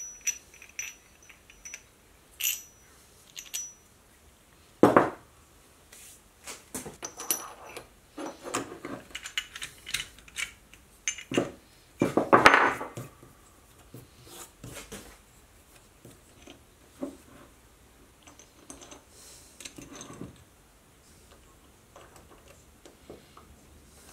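Steel parts of a lathe quick-change tool post clinking and knocking together as they are fitted by hand, with light scrapes of metal sliding on metal. A single sharp knock comes about five seconds in, and the loudest run of clatter comes around twelve seconds in.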